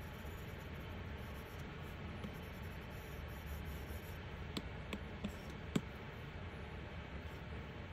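Light taps on an iPad's glass screen, four or so in the second half, the last the loudest, over a steady low hiss of room tone.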